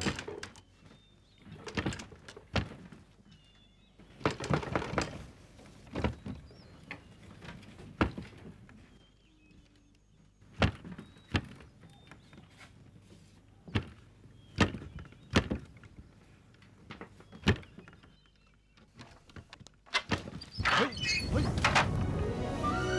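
A dozen or so scattered knocks and thuds, irregularly spaced with quiet between them; music comes in near the end.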